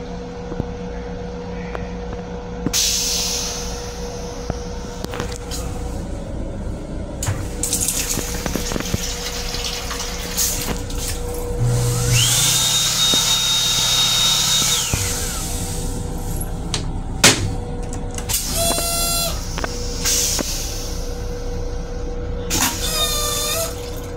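Flush of an M7 commuter railcar's stainless steel toilet: about halfway through, a whine rises, holds at a high pitch for about three seconds and winds down, over a low drone and a rushing hiss of water. It plays over the railcar's steady hum with a constant tone, followed by a sharp clunk and a couple of short high-pitched squeals near the end.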